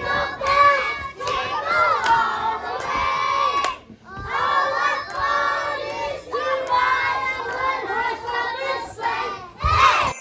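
A group of young children singing together, with a short pause about four seconds in.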